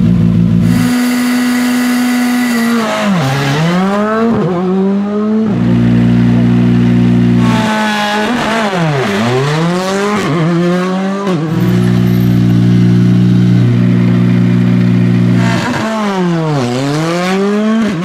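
Turbocharged four-cylinder rally car engines at high revs, held steady for a few seconds at a time and then sweeping sharply down and back up in pitch several times as the cars pass and change gear.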